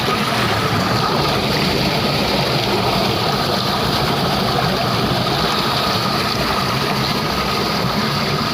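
Running water rushing steadily, a continuous even noise like a river or stream.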